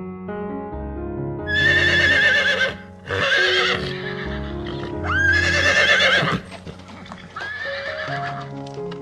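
A horse neighing four times, each whinny a loud quavering call, over calm piano background music.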